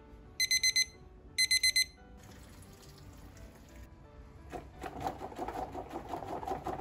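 Digital kitchen timer beeping in two quick bursts of high beeps about a second apart, signalling that the five-minute wait for the instant noodles is up. Near the end, hot water splashes into the kitchen sink as it is drained out of the instant-noodle cup through the lid's drain holes.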